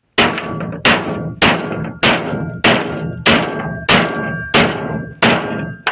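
Hammer striking the end of a metal drive pin through a shovel's socket and wooden handle, about ten even blows at roughly one and a half a second, each with a short metallic ring. The pin is being peened over a washer like a rivet so that it holds the new handle in place.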